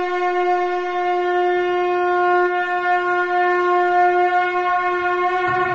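A conch shell (shankha) blown in one long, steady note.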